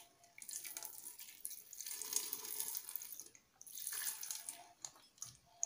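Milk pouring from a carton into a blender jar onto chopped mango, splashing in a long stream, breaking off briefly about three seconds in and then running again. A few light clicks near the end.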